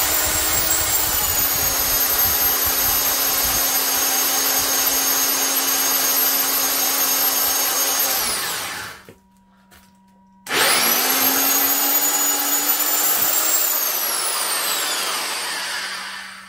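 Vintage Skil 3/4-inch heavy-duty drill with a 9-amp motor boring into a block of wood with a large wood bit. The motor runs steadily under load for about eight seconds and winds down. After a short pause it starts again for a few seconds, then winds down with a falling whine near the end.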